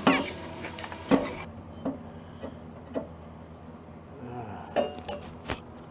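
Hard objects clinking and knocking: about seven separate sharp strikes, the loudest about a second in.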